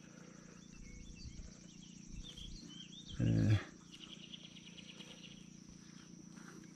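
Quiet outdoor background with a faint steady high tone, broken just after three seconds in by one short, low hum from a man's voice.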